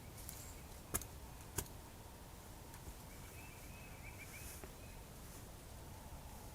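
Quiet outdoor ambience with two sharp clicks about a second apart near the start, and a faint high warbling note about halfway through.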